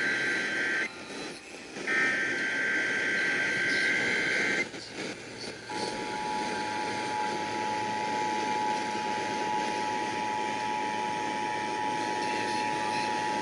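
Emergency Alert System monthly test as broadcast over the radio. The last of the shrill SAME header data bursts end about four and a half seconds in. About a second later the steady two-tone EAS attention signal (853 and 960 Hz) sounds, over background hiss.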